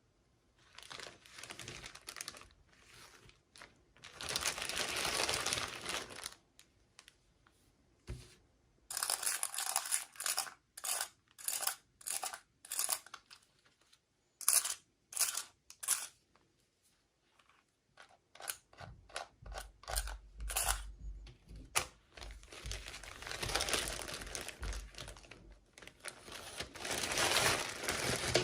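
Plastic toy packaging being crinkled and torn open by hand, in irregular spells of rustling with a run of short, separate crackles in the middle.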